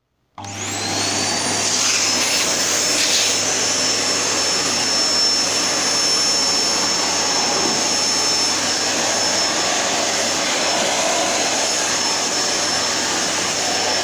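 A 1600 W Midea VCC34A1 bagless canister vacuum cleaner switched on, its motor whine rising as it spins up over the first couple of seconds. It then runs steadily and noisily, with a constant high whine over the rush of air.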